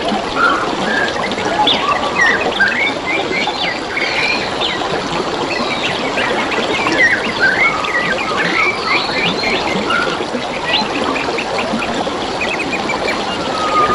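Water trickling and babbling in a steady rush, with several small birds chirping and whistling over it in quick, varied phrases.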